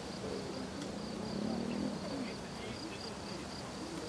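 An insect chirring in a steady, pulsing high trill, with people talking faintly underneath.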